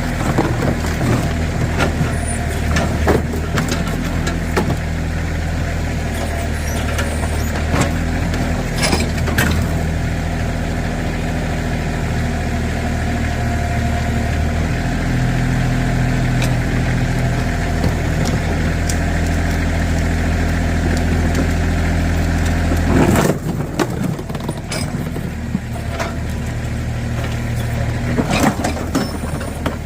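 Backhoe engine running steadily, with scattered knocks and crunches as it works through junk. A loud crash comes about two-thirds of the way in, after which the engine note drops lower.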